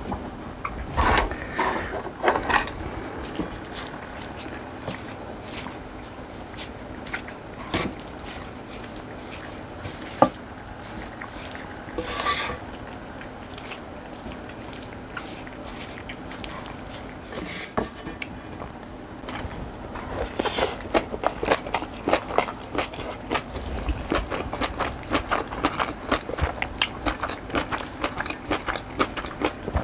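Close-up eating sounds of a person chewing and crunching a mixed-rice bibimbap and Korean vegetable side dishes. There are scattered bites and a sharp click about ten seconds in, then dense, rapid crunchy chewing from about two-thirds of the way through.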